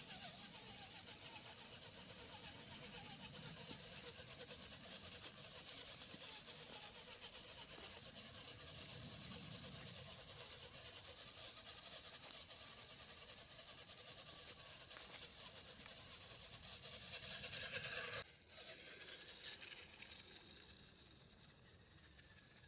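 HSP Pangolin 1/10-scale RC rock crawler's electric motor and gears whining with a steady high hiss as it drives close by through tall grass. Near the end the whine falls in pitch, then the sound drops suddenly to a quieter, more distant hiss.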